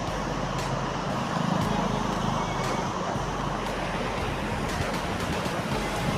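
Steady roar of the Ghataprabha River's water pouring over Gokak Falls, with a low rumble swelling briefly about a second and a half in.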